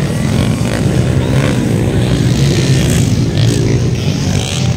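Motocross dirt bike engines running hard, revving up and down over the jumps.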